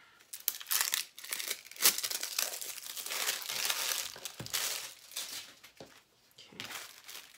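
Clear plastic packaging of a diamond-painting kit crinkling and tearing under the hands as it is opened, in irregular bursts, with a sharp crackle about two seconds in and a brief lull near six seconds.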